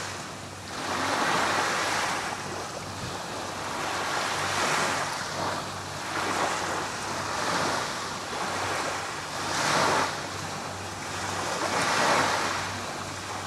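Small waves washing onto a sandy beach, rising and falling every second or two, with some wind buffeting the microphone.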